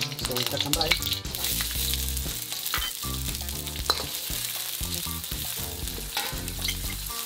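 Dried red chiles sizzling in hot oil in a steel wok while a metal wok ladle stirs them, scraping and tapping against the pan. The sizzle grows louder about a second in, as chopped scallions go into the oil.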